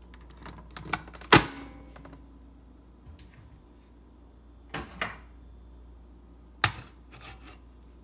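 Plastic and metal clicks of a Cuisinart single-serve coffee brewer being handled: a few light clicks, then the pod lid shut with one sharp, loud clunk about a second in. A few more sharp clicks and taps follow near the middle and toward the end.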